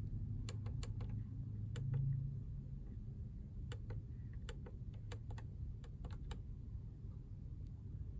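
Light, irregular clicks of fingertips tapping a screen, about fifteen in all with a cluster between four and six and a half seconds in, over a steady low hum in the car cabin.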